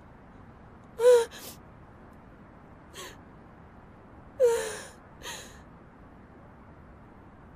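A woman sobbing: four short crying gasps with falling pitch, about a second in, at three seconds, and two close together near the middle, the first and third the loudest.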